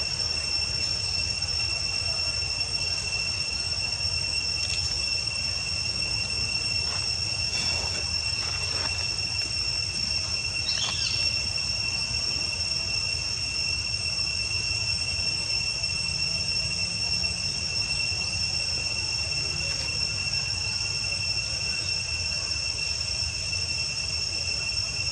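Insects droning with a steady, high, unbroken tone, over a low rumble.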